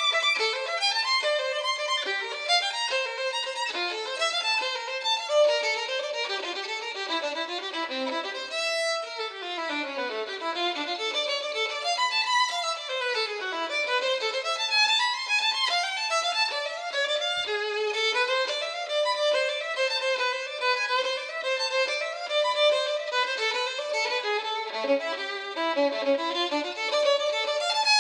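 Violin music with quick runs of notes climbing and falling.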